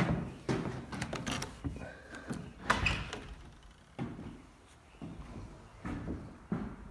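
Jeld-Wen French patio door being unlatched and swung open: a string of clicks, knocks and thumps, the loudest about three seconds in.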